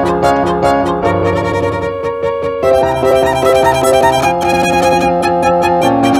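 Violin playing held, sustained notes with a lower-pitched accompaniment underneath, the notes changing in steps.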